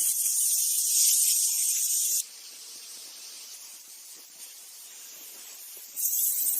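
A steady high hiss that drops to a much quieter hiss about two seconds in and comes back at full strength near the end.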